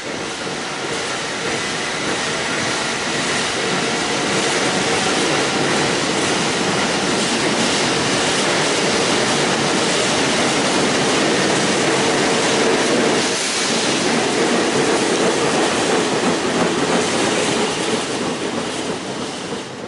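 Subway train running along an elevated outdoor platform: a steady rumble and clatter of wheels on rails with a faint whine. It grows louder over the first few seconds as the train comes alongside and eases off near the end as it moves away.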